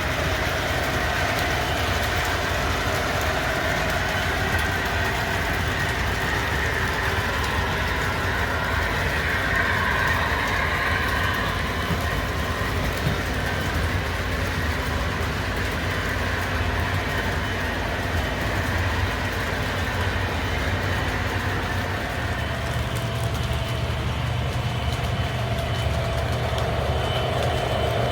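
O gauge model diesel locomotive running, its MTH Protosound onboard speaker playing diesel engine sound over the rumble of wheels rolling on the track. The engine note changes about three quarters of the way through.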